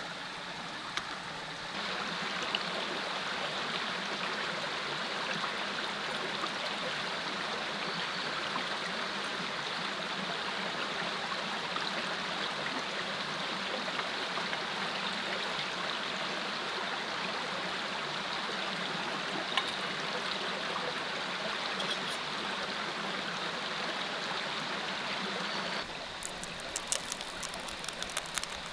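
Small mountain creek running over rocks: a steady rush of water. It gets louder about two seconds in and drops back near the end, where a run of sharp ticks joins it.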